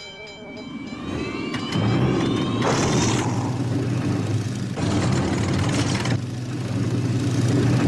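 Hawker Hurricane fighter's piston engine starting up: a rising whine over the first two seconds or so, then the engine running loud and steady.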